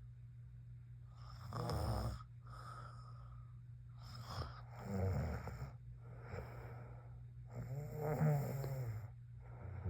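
A young woman snoring in her sleep: three loud snores about three seconds apart, with softer breaths between them.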